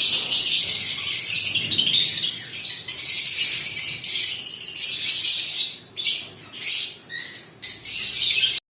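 A group of lovebirds chattering in a busy, continuous chorus of high-pitched chirps. It breaks into short separate bursts after about six seconds and then cuts off suddenly.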